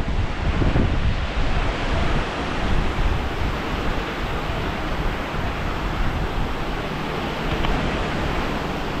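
Ocean surf washing onto a sandy beach, a steady hiss of breaking waves, with wind gusting on the microphone during the first few seconds.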